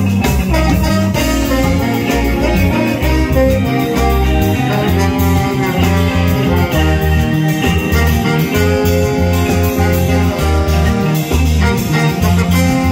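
Live band playing: trombone and saxophone over electric guitar and a drum kit, with a steady beat.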